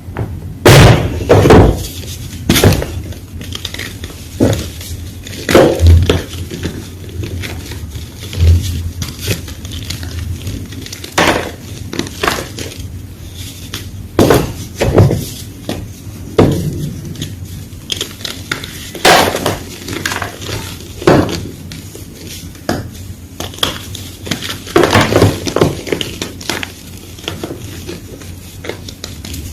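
Fresh white gym chalk being crunched: sharp, crisp crunches come irregularly every second or two, with softer crumbling between them.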